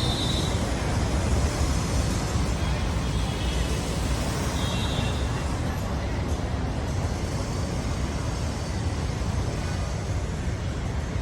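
City street traffic: a steady rumble of passing motor vehicles, with two brief faint high tones, one near the start and one about four and a half seconds in.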